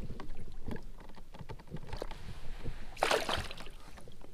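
Water splashing and dribbling against the side of a plastic kayak as a largemouth bass is held in the water and released, with one louder splash about three seconds in as the fish kicks free.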